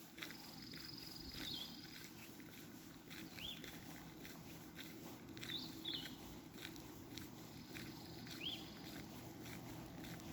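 Faint outdoor morning ambience: short high chirps from small birds every couple of seconds, twice with a thin held high note. Under them are soft footsteps and a steady low hum.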